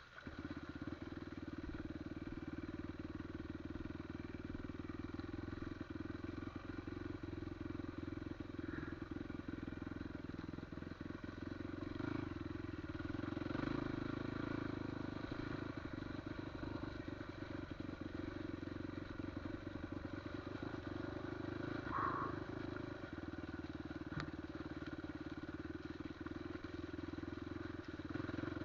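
Off-road motorcycle engine running at a steady pace while being ridden. A short, brighter sound stands out about 22 seconds in.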